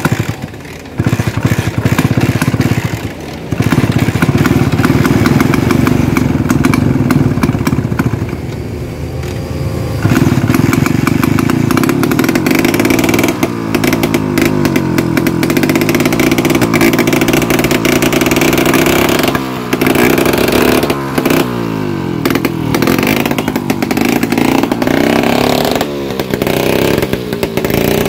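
Vespa scooter two-stroke engine being revved hard over and over, the revs climbing and dropping back every few seconds during an engine test.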